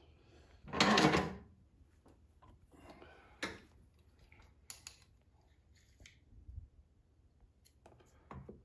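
Tools and lathe fittings being handled: one loud scraping rustle about a second in, then scattered metallic clicks and knocks. The lathe is not running.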